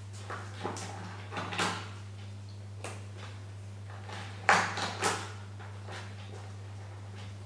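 Hands working the cables at an electric scooter's stem: a scatter of short clicks and rustles, with the two loudest a little past halfway, over a steady low hum.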